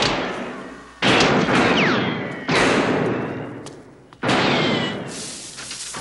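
Three loud handgun shots, roughly a second and a half apart, each with a long echoing decay.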